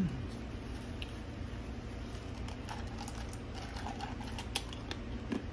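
Faint scattered clicks and small taps from a clear plastic cup of soda being handled and sipped from, over a low steady room hum. One sharper click comes near the end.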